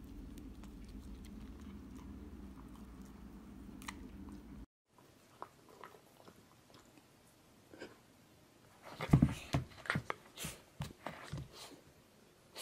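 A puppy biting and chewing at a whole lemon: a quick run of sharp mouth clicks and smacks in the last few seconds. Before that, a low steady hum cuts off abruptly.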